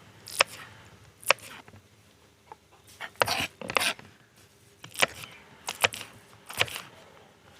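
Knife striking a cutting board while green chillies are cut: about eight sharp knocks at uneven spacing, a few of them close together.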